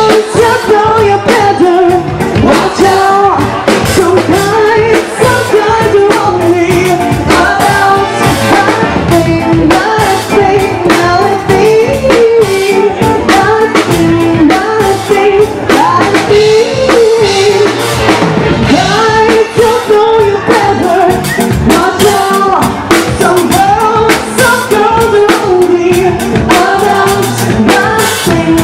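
Live pop/rock band performing: a vocalist singing over drum kit and guitar, with a steady beat.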